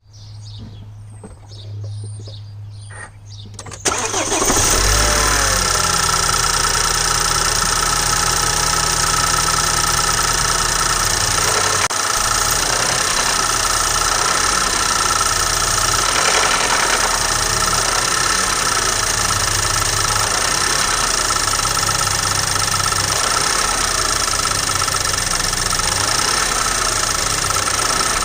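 BMW N20 2.0-litre turbocharged four-cylinder engine starting about four seconds in after a quieter low hum, then idling steadily. This is the engine recorded for an engine knock.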